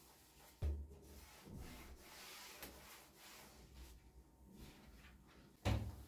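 A cloth rubbing and wiping the inside of a white wall cabinet. Two sharp knocks against the cabinet board, about a second in and near the end, are the loudest sounds.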